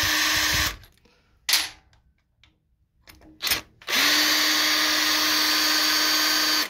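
Small impact driver backing out scooter variator-cover screws. It runs freely without hammering, because the screws are already loose and give no resistance. One run stops shortly after the start, two brief blips follow, and then a steady run of nearly three seconds with a high whine fills the second half.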